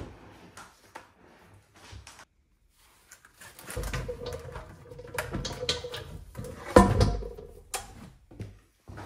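A plastic bucket of epoxy resin lowered into a metal resin pressure pot, scraping and knocking against the pot, with one loud clunk about seven seconds in as it is set down.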